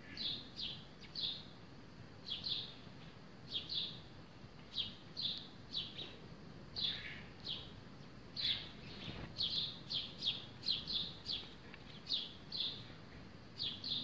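House sparrows chirping: a run of short, high chirps, often in pairs, that come more thickly for a couple of seconds after about nine seconds in.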